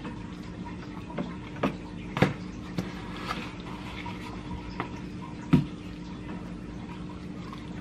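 Scattered soft clicks and taps of eating and handling food at a table, including a foam takeout clamshell being moved, with one heavier thump about five and a half seconds in. A steady low hum runs underneath.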